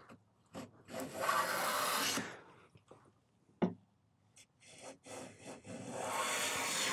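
Two passes of a Quangsheng Luban No 4 smoothing plane along the edge of a board, each a hissing stroke of a second and a half or two as the blade peels off a shaving, with a few light knocks between them. These are test cuts just after the lateral adjustment lever was nudged to even out a cut that was running heavy on one side.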